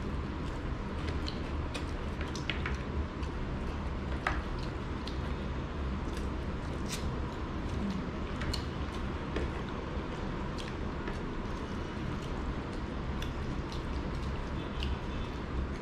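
Two people eating rice and curry by hand: wet squishing of fingers mixing rice and curry on plates, with scattered small clicks and mouth smacks from chewing, over a steady low background hum.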